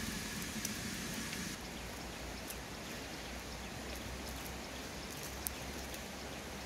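Small wood fire crackling under a steaming clay cooking pot: a steady hiss with scattered faint pops, and one sharper snap about five and a half seconds in.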